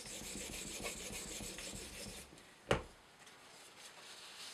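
A 2K-grit water stone on an Edge Pro guide arm is stroked lightly along a CTS-20CP steel knife edge, making a soft scraping rub that stops about two seconds in. A single sharp knock follows as the stone arm is set down.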